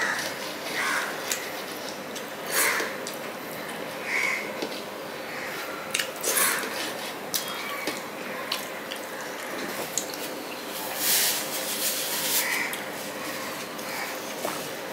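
Close-miked sounds of a man eating rice and fish curry by hand: wet chewing, lip smacks and mouth clicks, with his fingers working rice on a steel plate. The sounds come irregularly as scattered short smacks and clicks, the loudest a short noisy burst about 11 seconds in.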